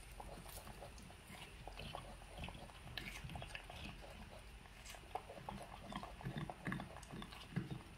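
Faint short low calls from pet monkeys, among scattered light clicks and taps.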